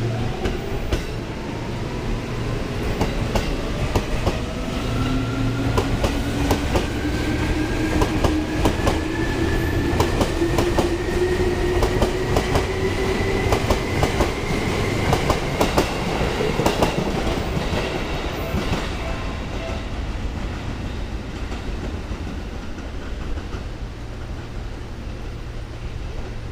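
Seibu 2000-series electric train pulling out and accelerating away: its motor whine rises steadily in pitch for the first dozen seconds or so, while the wheels clack over rail joints and points. The sound fades over the last few seconds as the train recedes.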